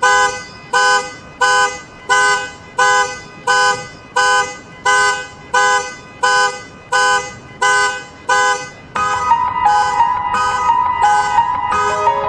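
Car alarm sounding: a loud pitched honk repeated about every 0.7 seconds, switching about 9 seconds in to a different, continuous tone with quicker pulses over it.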